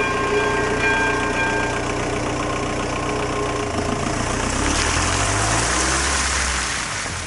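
Level-crossing warning tones die away in the first two seconds, leaving a car's engine running; about four seconds in the engine rises as the car pulls away and drives over the crossing, its tyres hissing on the wet, slushy road.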